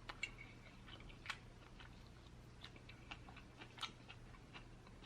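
Faint chewing: a few quiet, irregular mouth clicks and small crunches of food being chewed.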